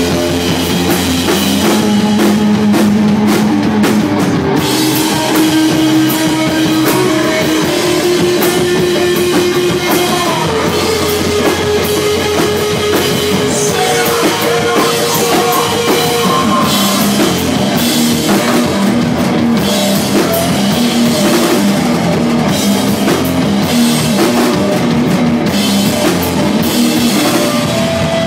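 Live rock band playing loud, heavy rock: a pounding drum kit under distorted guitars and bass holding long notes.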